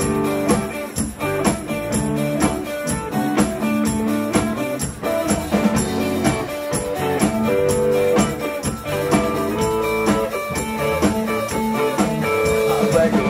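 Live band playing an instrumental passage: electric guitar over drum kit and tambourine at a steady beat, with no singing.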